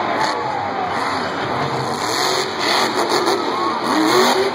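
Grave Digger monster truck's supercharged V8 revving and running as the truck drives, over a cheering stadium crowd.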